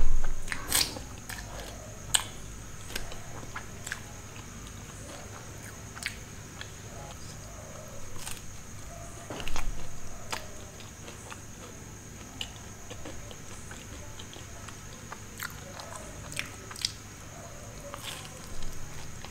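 Close-miked chewing of a cheesy pizza slice, with scattered wet mouth clicks and smacks. A fresh bite into the slice comes near the end.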